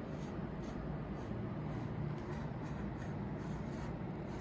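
Steady low hum of background noise with faint, soft ticks about every half second.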